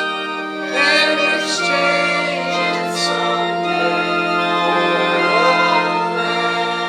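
Organ playing a hymn, with sustained chords and voices singing along, the wavering melody line rising over the held organ notes.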